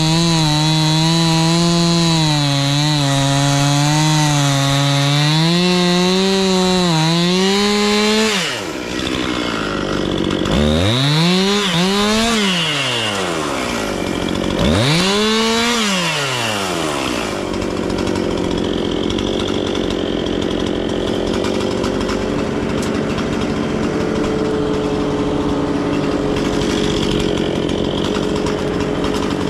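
Gas chainsaw running at full throttle cutting through a log, its pitch sagging and recovering under load. About eight seconds in it drops off, then revs up and falls back twice, after which a lower steady engine drone carries on.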